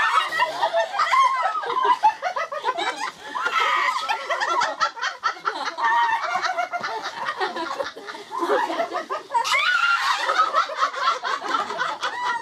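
Several women laughing together, overlapping giggles and chuckles, dipping briefly and then swelling louder near the end.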